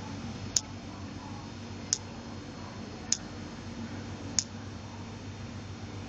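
Touchscreen phone taps: four short, sharp clicks about a second and a quarter apart as keys and the Send button are pressed, over a steady low hum.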